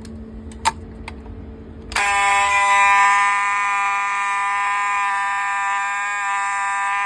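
A few light clicks as a fire alarm pull station is operated, then about two seconds in a fire alarm horn comes on: a loud, steady buzzing tone that does not pulse.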